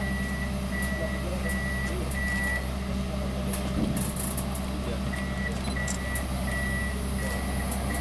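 Komatsu PC200-8 amphibious excavator's diesel engine running steadily, with a high warning alarm beeping about one and a half times a second. The alarm pauses for a couple of seconds in the middle.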